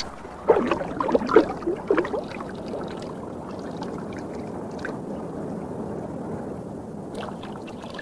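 Water rushing and gurgling steadily. In the first two seconds a few short sounds with a wavering pitch and sharp splash-like clicks stand out above it.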